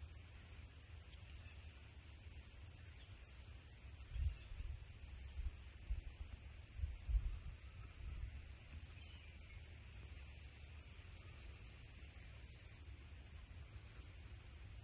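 Outdoor wind rumbling on the microphone, swelling in gusts about four and seven seconds in, over a steady high-pitched hiss.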